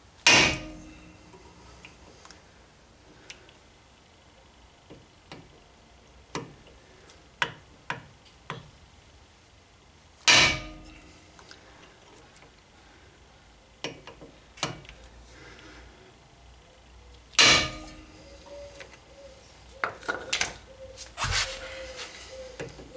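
Hammer blows on a manual impact driver fitted with a T30 Torx bit, shocking loose a Torx screw on the brake disc. Three loud metal strikes several seconds apart, each with a short ring after it, and lighter knocks between them. A run of lighter clicks and clatter comes near the end.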